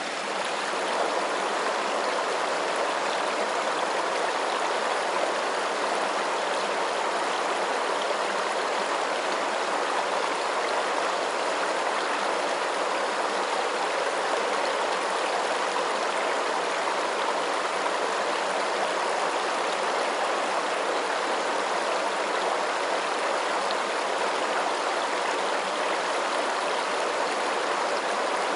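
Running water: a steady, even rushing of a stream or small waterfall with no breaks.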